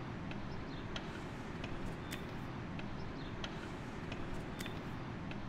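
Steady low outdoor background noise with scattered sharp ticks and a few short, high chirps, irregular, about one or two a second.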